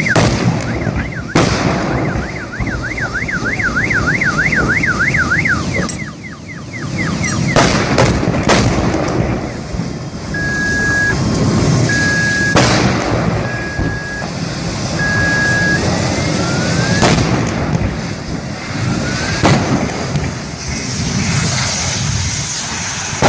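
A wailing alarm warbles up and down about three times a second for the first six seconds or so. Sharp bangs from a vehicle fire come every few seconds, several close together around eight seconds in. In the middle there are four even beeps, over a constant loud rush of fire and traffic noise.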